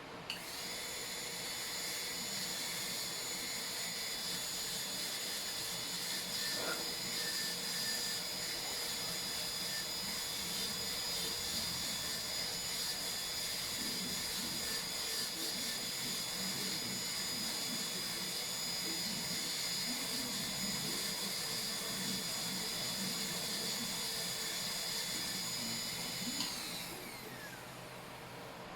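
High-speed dental handpiece (drill) running while a cavity is prepared in a molar. It gives a steady high-pitched whine that winds down in pitch and fades near the end as the drill stops.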